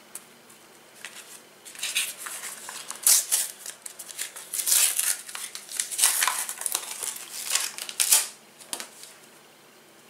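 Paper stickers being handled: irregular bursts of rustling and crinkling as a sticker is worked in the hands, ending about eight seconds in.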